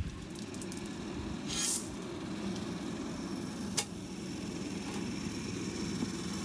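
A small engine running steadily at low revs, with a brief hiss about one and a half seconds in and a single sharp click near four seconds.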